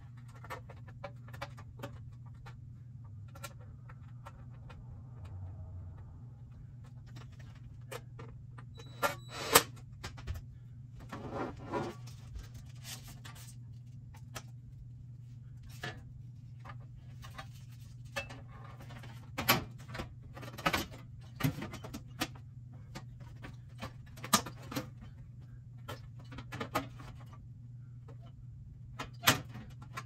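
Aprilaire E100 dehumidifier's sheet-metal cabinet being handled and fitted back over the unit by hand: scattered metal clicks, knocks and rattles, the loudest knocks about nine seconds in and again near the end.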